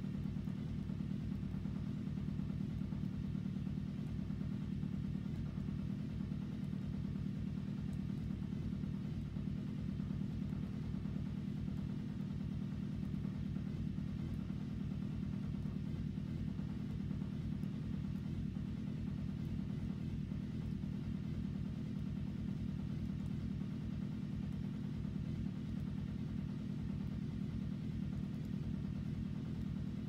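A machine running steadily: a low, unchanging rumble with a constant hum.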